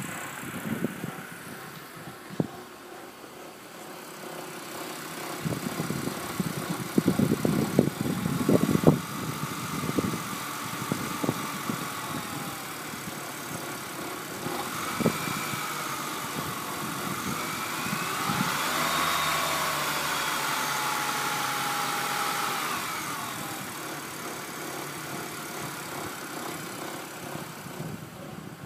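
2006 BMW 330i's straight-six idling with a bizarre vibrating noise that sounds loudest in the engine bay rather than at the exhaust; the cause is not yet known. Irregular low thumps come in the first third, and in the middle a higher tone rises and falls a few times as the sound grows a little louder.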